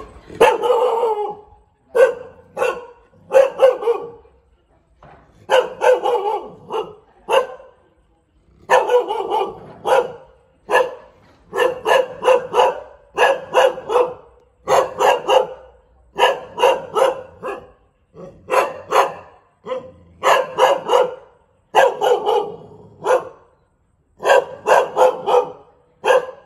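Thai Bangkaew dog barking over and over, in quick runs of several barks with brief pauses between them.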